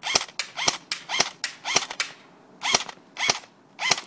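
Airsoft rifle firing single shots, about seven sharp snaps spaced roughly half a second apart, with a pause of about a second midway.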